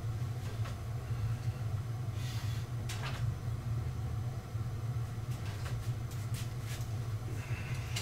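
A steady low hum, with scattered clicks and knocks from a barbell being lifted off a power rack: one clear knock about three seconds in and several more a couple of seconds later.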